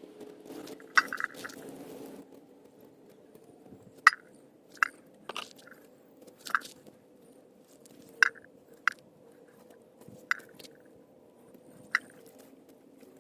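About nine short, sharp clicks or snaps at irregular intervals over a faint steady hum.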